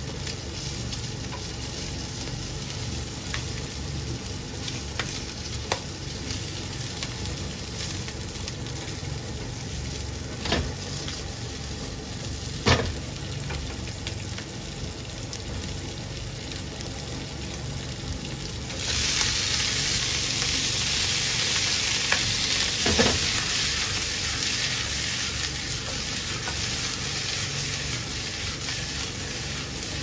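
Sliced wiener sausages sizzling in oil in a frying pan, with chopsticks clicking against the pan a few times. About two-thirds of the way through, the sizzle suddenly gets louder and brighter.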